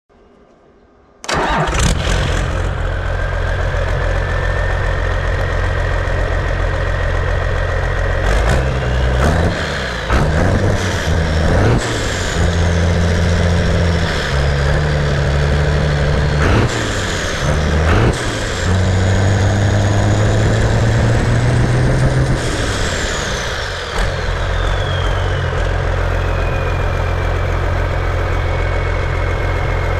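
Freshly rebuilt John Deere 6068T 6.8L turbocharged inline-six diesel starting up about a second in and idling, with a rising turbocharger whine. It is revved up and back down several times, the turbo whine sweeping up and falling each time, then settles back to a steady idle as the whine drops away.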